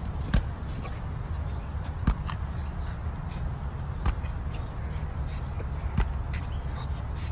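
Four sharp knocks, about one every two seconds, over a steady low rumble.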